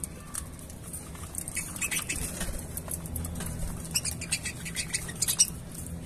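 Budgerigars pecking and cracking seeds in a plastic seed cup: a rapid, irregular patter of small dry clicks that grows busier in the second half.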